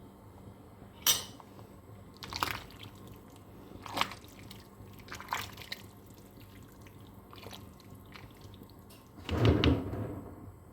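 Cooking pot and utensils knocking together as a pot of soup is handled: four short separate clinks, then a louder clatter near the end, over a faint steady background.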